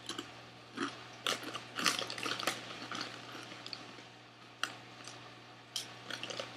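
A mouthful of Lay's Baked barbecue potato chip being crunched and chewed: irregular crisp crunches, densest in the first three seconds and then a few scattered ones.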